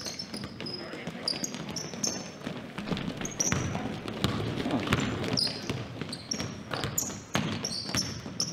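Basketball being dribbled on a hardwood gym floor, a run of sharp bounces, with sneakers giving short high squeaks as players run and cut.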